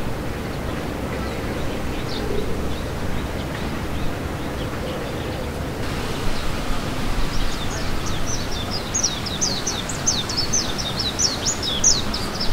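Steady outdoor background hiss; from about halfway through, small birds chirping in a quick, high-pitched string, several chirps a second.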